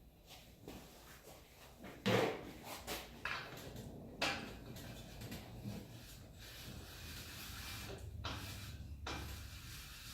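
Irregular knocks and clunks with rubbing and scraping in between, the loudest knocks about two and four seconds in, as things are moved and handled.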